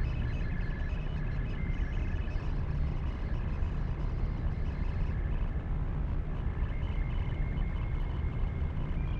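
Sci-fi spaceship interior ambience: a steady low rumbling hum, with faint pulsing electronic tones over it that fade out about halfway through.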